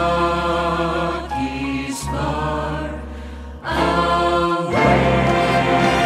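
A song with held sung or chorus-like notes over a steady bass accompaniment, with a brief pause between phrases about three and a half seconds in.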